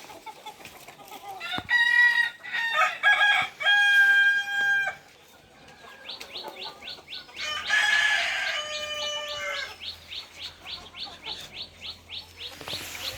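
A rooster crowing twice, about two seconds in and again about eight seconds in, the first crow ending in a long held note, with hens clucking. From about six seconds a rapid run of high peeps comes about three or four times a second.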